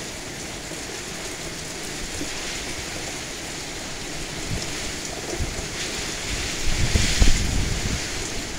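Heavy wind-driven rain from a hurricane: a steady rush of rain, with gusts that build in the second half and buffet the microphone.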